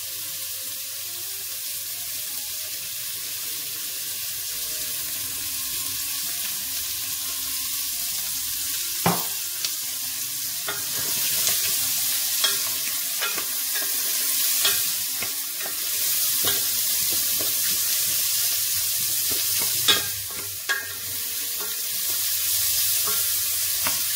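Sliced onions and mushrooms sizzling in olive oil in a stainless steel pot, the sizzle slowly growing louder. From about nine seconds in, a wooden spoon stirs them, with scattered sharp knocks and scrapes against the pot.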